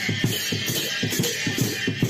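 Background music with a steady, quick beat of about four strokes a second.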